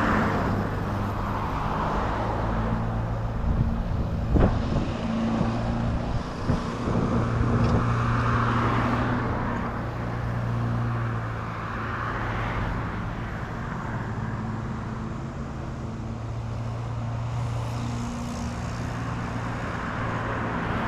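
Road traffic: cars passing by one after another, each swelling and fading, over a steady low engine hum. There is a single sharp knock about four seconds in.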